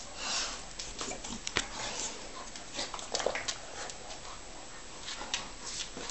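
A Shar-Pei and a Tibetan mastiff playing over a stuffed toy: scuffling, sniffing and light clicks of claws on the floor, with a short dog whine about three seconds in.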